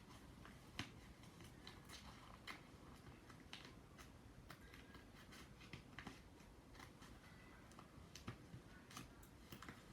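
Faint, irregular clicks of scissors snipping paper, with light handling of the paper.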